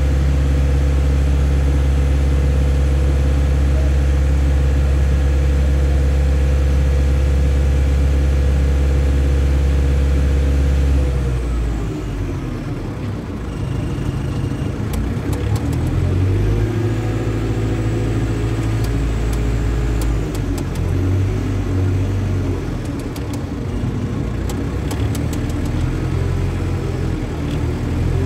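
Crane's heavy diesel engine running at steady high revs, then dropping about eleven seconds in and rising and falling unevenly as the counterweights are lifted. A scatter of faint clicks in the second half.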